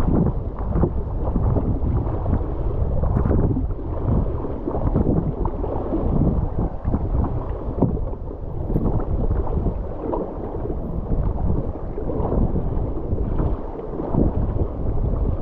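Kayak running a rapid: water rushing and splashing irregularly around the boat, with heavy wind rumble on the microphone.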